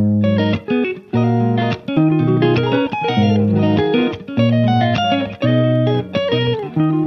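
Background music: guitar played in short plucked phrases with a steady beat, with brief gaps between phrases.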